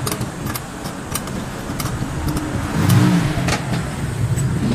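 Light metal clinks of a ring wrench and the scooter's CVT variator pulley being handled, over a motor vehicle engine running that swells about three seconds in.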